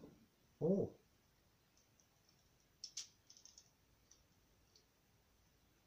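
Light plastic clicks from a K'nex toy gun's pieces as it is handled: one sharper click about three seconds in, followed by a quick run of small ticks and a couple of faint single ticks.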